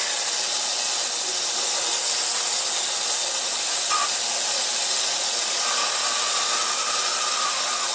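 Ultrasonic cleaner running with a steady hiss. A faint thin tone comes in briefly about halfway through and again for a couple of seconds later on.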